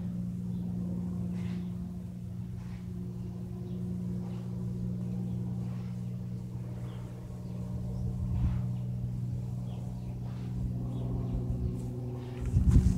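Single-engine Cessna propeller plane droning steadily overhead, a low even hum. Near the end a loud rough knock of handling noise.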